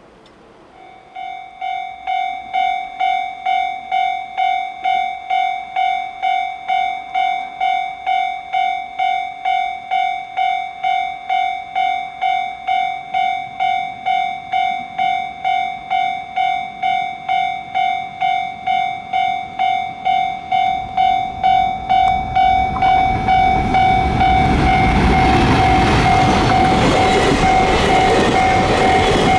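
Japanese level crossing warning bell starts ringing about a second in, an even clanging at about two strokes a second, signalling an approaching train. About 22 s in, the train's noise swells and it passes loudly over the crossing, with the bell still ringing.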